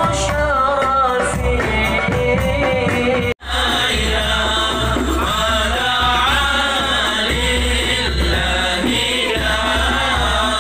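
Men singing a devotional praise chant (selawat) with a wavering, ornamented melody, led over a microphone and loudspeaker. The sound cuts out sharply for an instant about a third of the way in, then the singing resumes.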